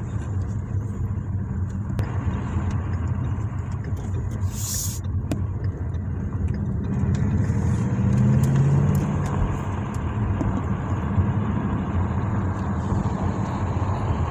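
Ford Mustang GT's 5.0-litre V8 running at low speed, heard from inside the cabin as a steady low engine note. About eight seconds in it briefly rises in pitch and gets louder under throttle, then settles back.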